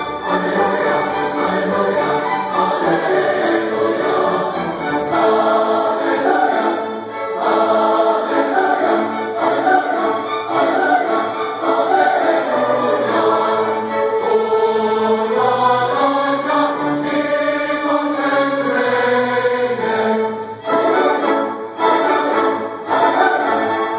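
A large choir singing with a string orchestra: held notes moving through changing chords, breaking into shorter phrases near the end.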